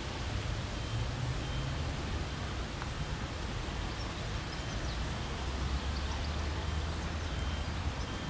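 Steady outdoor background noise with a low rumble, and a few faint high chirps in the second half.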